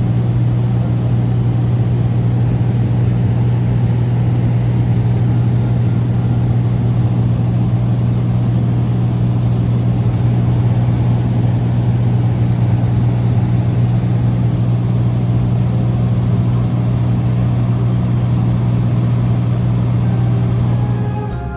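Cessna 207's six-cylinder piston engine and propeller droning steadily in flight, a loud, even low hum with no change in pitch.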